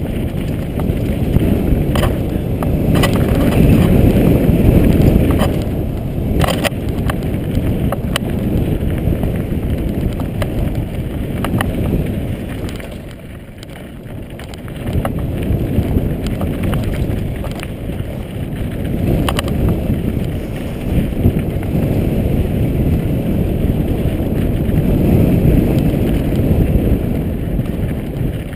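Mountain bike rolling fast over a rocky dirt trail: a steady low rumble of tyre noise and wind on the microphone, broken by sharp rattles and knocks as the bike hits stones. It drops off for a second or two about halfway through, then picks up again.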